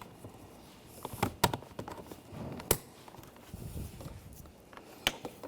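A few sharp plastic clicks with light rustling and handling noise: electrical connectors on a car door panel being plugged in and seated.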